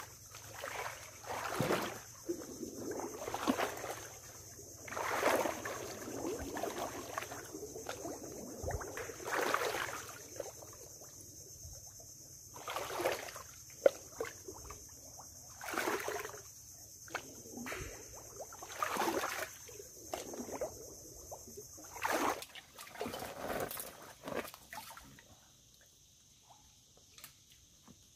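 Water sloshing and swishing with each stride of people wading waist-deep through still water, a surge every second or two. The surges stop near the end, when the wading halts.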